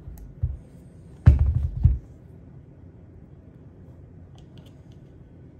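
Dull knocks and thuds of a paintball marker body being handled and turned over on a rubber work mat, loudest in a quick cluster a little over a second in. A few faint light clicks of small parts follow near the middle.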